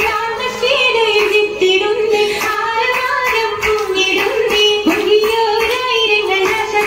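Children's voices singing an Oppana song (a Mappila folk song) in unison, with hand claps keeping the rhythm.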